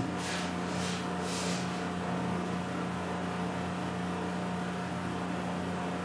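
Steady low electrical or mechanical hum over a faint hiss: the room's background tone, with no speech.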